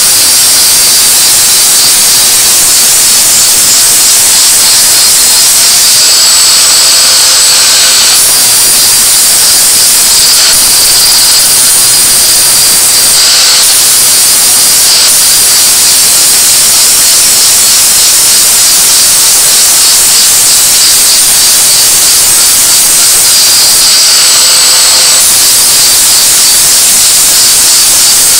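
INGCO angle grinder grinding metal: a loud, steady hiss with a higher whine that brightens for a second or two a few times.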